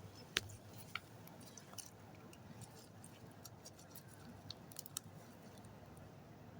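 Slime being kneaded and pressed by hand: faint, irregular sticky clicks and pops, the sharpest about half a second in.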